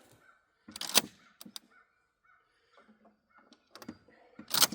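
Sharp clacks and knocks: two louder ones about a second in and near the end, with fainter clicks between.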